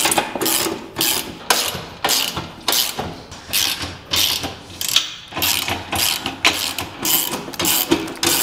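Socket ratchet (19 mm socket) clicking in quick back-and-forth strokes, about two to three a second, as nuts are run down snug on the steel carrier's long bolts.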